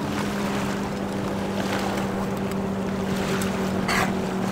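A motor hums at a steady, unchanging pitch over wind and surf noise, with a brief click about four seconds in.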